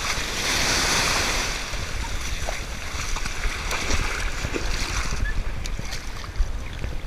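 Shallow surf washing and splashing around a hooked sand tiger shark as it thrashes in the wash at the water's edge, with a louder wash of water in the first second or so. Wind rumbles on the microphone throughout.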